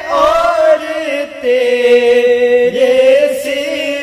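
Male voices singing an Urdu devotional kalaam (manqabat) in praise of Ghaus-e-Azam, drawing out long held notes between lines, with one long steady note about halfway through.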